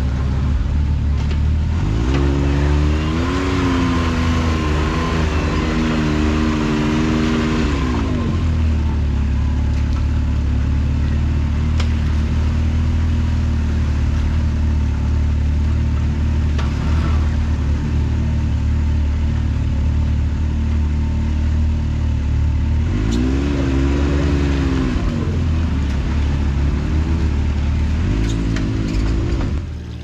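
Can-Am Maverick X3 side-by-side engines running at a low rumble while crawling over wet rock, the revs rising and falling twice: a few seconds in and again near the end.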